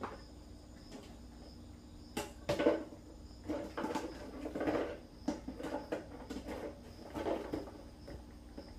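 A small dog knocking, pushing and mouthing a plastic jar on a floor mat: a run of irregular plastic knocks and scraping clatters, busiest in the middle, with a faint steady hum underneath.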